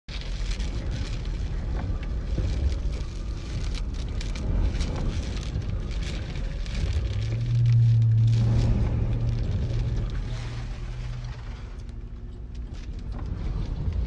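Hurricane-force wind and rain buffeting the car, heard from inside it as a rough rumble with scattered crackles of rain spatter. A low steady hum swells in a little after the middle for a few seconds and is the loudest part.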